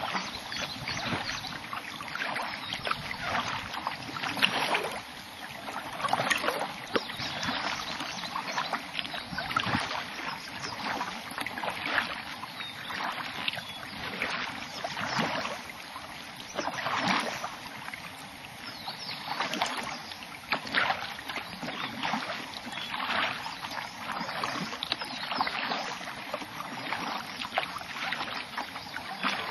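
Kayak paddle blades dipping and splashing in the water in a steady paddling rhythm, a stroke about every one and a half seconds.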